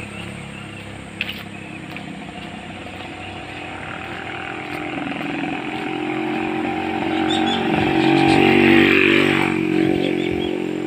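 Motorcycle engine approaching along the road and passing close by, growing steadily louder to its loudest about eight or nine seconds in, then beginning to fade.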